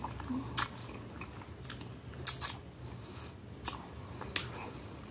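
Close-up mouth sounds of a person chewing a mouthful of spaghetti in tomato sauce, with several sharp, wet smacks spaced through the chewing.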